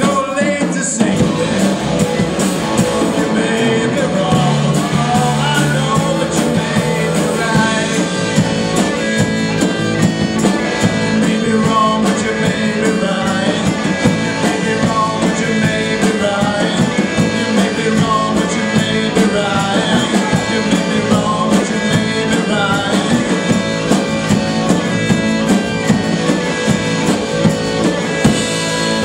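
Rock band playing: drum kit keeping a steady beat under guitar, with a melodic lead line that may be singing.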